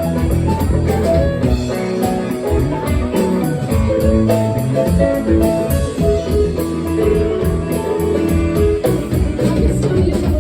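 Live blues band playing an instrumental passage, with guitar and drums, continuous and loud.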